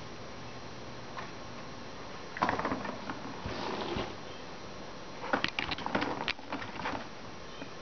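Kittens batting a ball around a plastic circular track toy: the ball rattles and clicks along the track and paws knock against the plastic. It comes in bursts, a short one about two and a half seconds in, another about a second later, and a longer run of sharp clicks from about five to seven seconds in.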